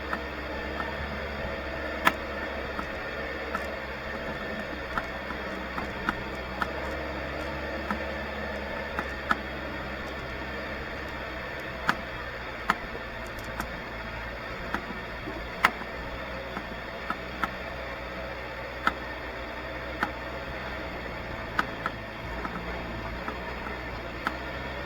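A vehicle engine idling, a steady low hum, with sharp irregular clicks and taps about once a second.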